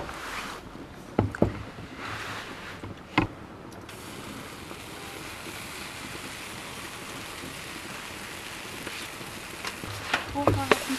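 Sharp metal clanks of a cast-iron waffle iron being handled, then a steady hiss from about four seconds in as batter goes onto the hot iron and sizzles, with more clanks near the end as the iron is closed.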